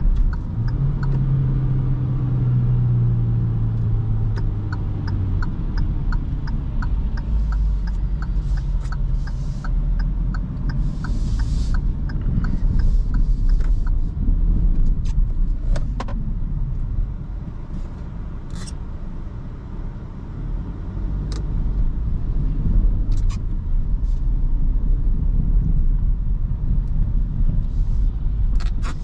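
In-cabin sound of a Kia Rio's 1.2-litre four-cylinder petrol engine and tyre noise while driving. The engine hum is strongest for the first five seconds after a gear change, then settles into a steady rumble that dips a little past the middle. A regular ticking about twice a second runs through the first half and returns near the end: the turn-signal indicator.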